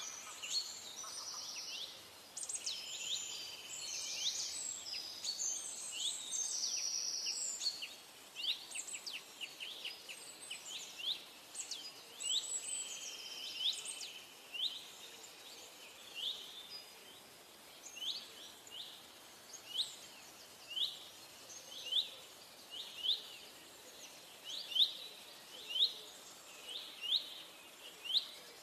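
Forest songbirds singing and calling, a dense overlapping chorus for the first several seconds, then one bird repeating a short sharp note about once a second. Underneath is the faint steady rush of a stream.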